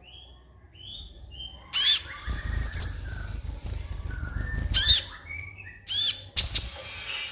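Sunbird (kolibri ninja) singing: sharp, high arching chirps a second or so apart, with softer, lower twittering notes between them.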